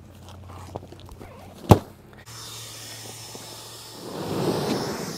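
Stiff fabric of a rolled inflatable boat rustling as it is unrolled, with one sharp knock about a second and a half in. After a cut, an electric air pump hums and then grows louder with a rush of air about four seconds in as it inflates the boat.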